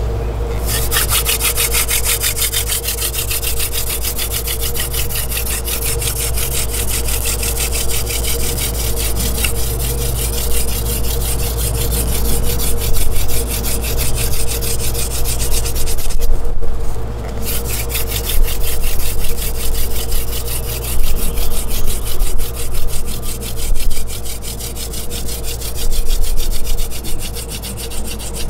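Wooden hand-drill spindle spun rapidly back and forth between the palms, grinding in the notch of a wooden hearth board, with one brief pause about halfway through. This is the friction that builds up hot wood dust in the notch toward an ember.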